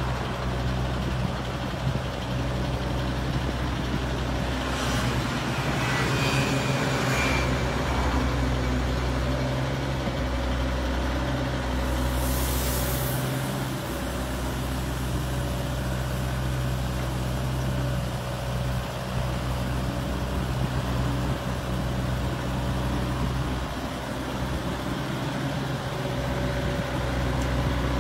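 Eurocomach ES 85ZT mini excavator's diesel engine running steadily with a faint hydraulic whine as it digs sand and swings to load a dump truck, along with the truck's idling diesel. Short hisses come about five and twelve seconds in.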